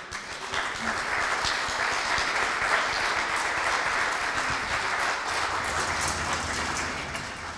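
Audience applauding, a dense steady clapping that eases off a little near the end.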